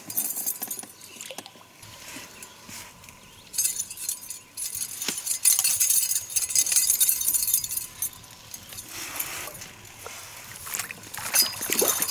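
Hooked rainbow trout thrashing and splashing at the water's surface beside the boat, in bursts, with a louder splash of water near the end as it is scooped into a rubber landing net.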